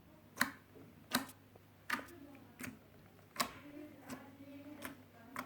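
Slime being squeezed and poked, giving sharp wet clicks and pops about every three-quarters of a second, some louder than others.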